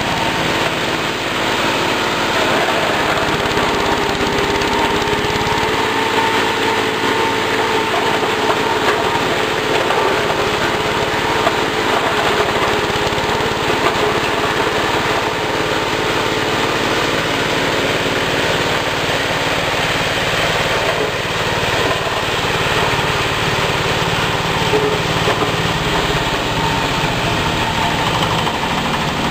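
Mangosteen-peel crushing machine running steadily on its 8 HP diesel engine and V-belt drive while it chops dried mangosteen peel into coarse granules. The sound is a loud, even mix of engine and grinding noise with a faint steady whine.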